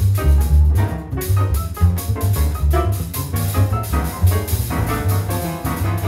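Jazz piano trio playing: piano with deep double bass notes and a drum kit with busy cymbal strokes.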